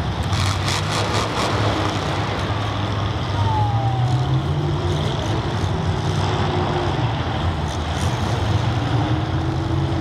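Several demolition derby cars' engines running together in a large stadium, a steady low rumble, with a quick run of sharp knocks about half a second in.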